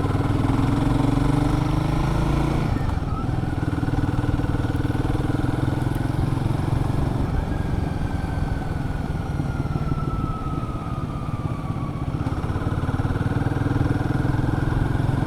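Royal Enfield Guerrilla 450's single-cylinder engine running while the bike is ridden, heard from the rider's helmet. The engine note climbs a little, dips about three seconds in, then holds steady.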